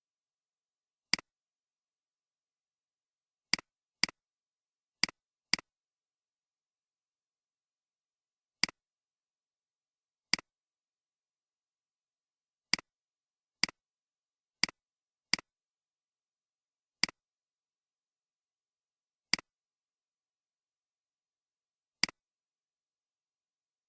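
Computer mouse clicks: about fourteen single sharp clicks at irregular intervals, some in quick pairs.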